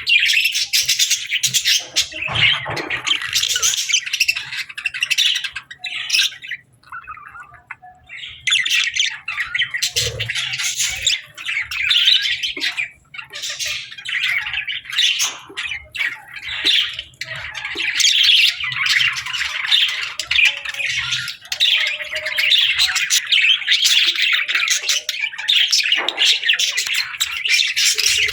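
A flock of budgerigars chattering and squawking, dense rapid warbling chirps with a short lull about a third of the way in.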